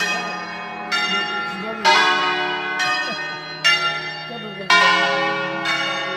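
Church bells from a ring of ten in D-flat, hung in the Veronese system, rung one at a time: six strokes about a second apart. Each stroke is sharp and rings on under the next, over a steady low hum.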